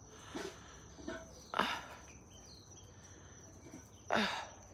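A few short rustling, scraping noises, the two loudest about one and a half seconds and four seconds in, as a sagging tomato plant and its wire support are handled and propped back up. A faint steady high tone sits underneath.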